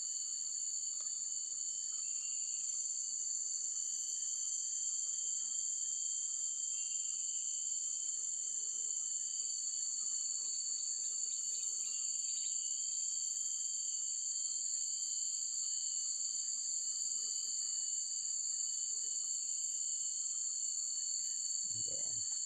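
Steady insect chorus: several continuous high-pitched trills at different pitches, unchanging throughout, with a few faint short chirps among them.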